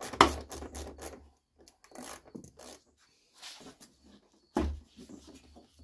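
A 7 mm socket loosening hose clamps on a side-by-side's clutch intake tube, with a quick run of clicks in the first second or so. Then scattered knocks and rubbing as the tube is worked loose, the loudest knock about four and a half seconds in.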